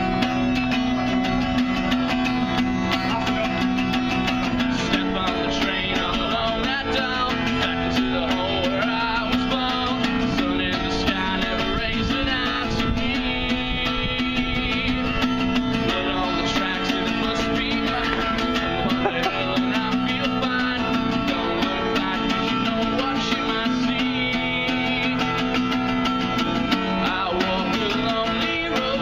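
Guitar-led music playing continuously.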